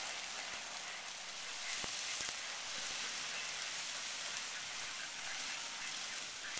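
Dry turnip seed stalks and pods crackling steadily as a pickup truck's tires roll over and crush them on a tarp, threshing out the seed, with a couple of faint snaps about two seconds in.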